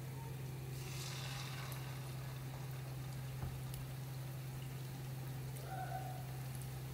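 Batter-coated chicken pieces shallow-frying in hot oil with a faint sizzle and small crackles, the sizzle swelling about a second in as another battered piece goes into the oil. A steady low hum runs underneath.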